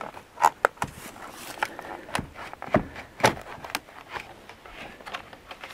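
Irregular light clicks and knocks of hands working the side mirror loose from a car door: plastic and metal mirror and trim parts being handled.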